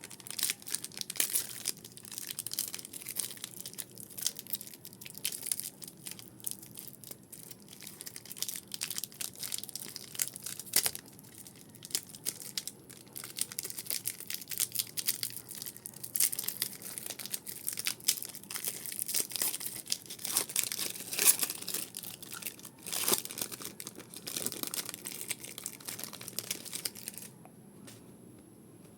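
Pokémon booster pack wrappers being torn open and crinkled by hand: a continuous irregular run of rips and crinkling that stops near the end.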